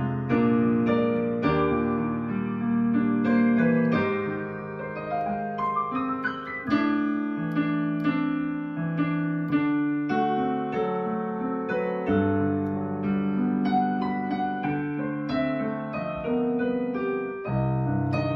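Yamaha digital piano played solo: a slow jazz standard, with chords held low under a melody above.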